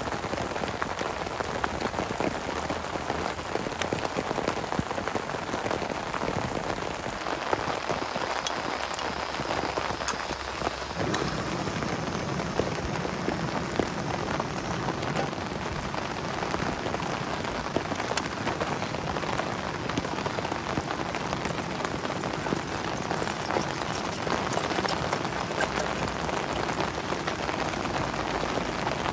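Heavy rain falling steadily on a plastic tarp shelter, an even hiss of rain with a dense patter of drops hitting the sheeting.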